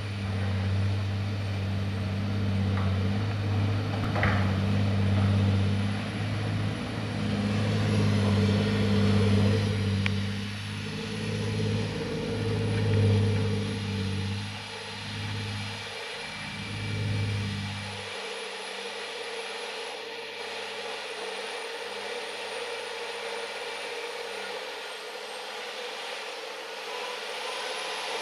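Heavy diesel engines of Sany SKT90S mining dump trucks and a loading excavator running, a deep drone that swells and eases. About eighteen seconds in the deep part drops away, leaving a steadier, higher hum.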